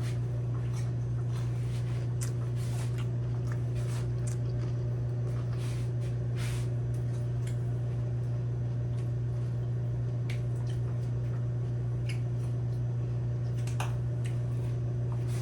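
Soft wet squishes and faint clicks from chicken salad on cucumber slices being spooned, handled and eaten, over a steady low electrical hum.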